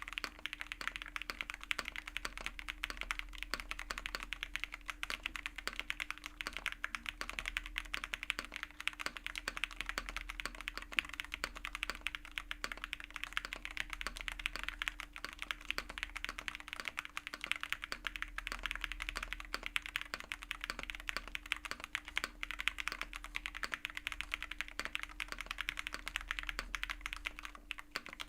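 Fast, continuous typing on a custom mechanical keyboard with WS Jade linear switches: a dense, even stream of key clacks without pause.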